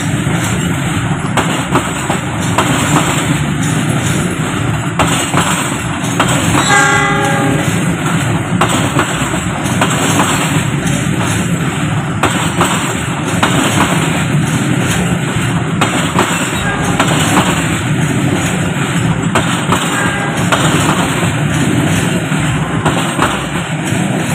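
Passenger train carriages rolling past close by at steady speed: a loud, continuous rumble with the wheels clattering over the rail joints. A brief pitched tone sounds about seven seconds in.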